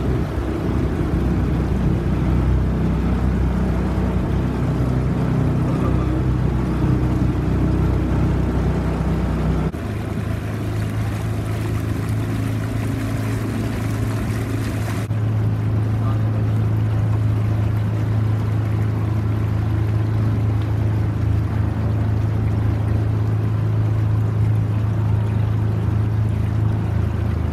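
Motor of a small aluminium boat running steadily under way, with water rushing along the hull. About ten seconds in, the engine note changes and settles into a steady low hum.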